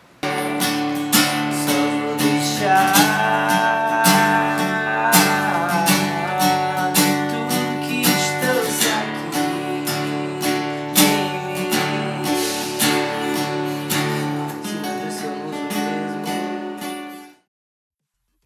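Acoustic guitar strummed in a steady rhythm, with a higher melody line over it at times. It cuts off suddenly near the end.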